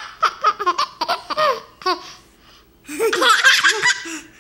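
A baby laughing in a run of short bursts, then after a short pause a louder, longer stretch of laughter with young children laughing along.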